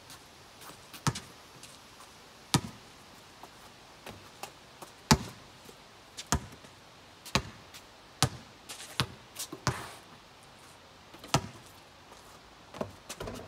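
A basketball bouncing and being caught: about a dozen sharp single thuds at uneven intervals, the loudest about five seconds in.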